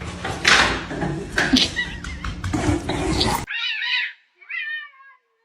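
A domestic cat meowing twice in short calls, the second sliding down in pitch, after a few seconds of mixed noise and knocks that cut off suddenly.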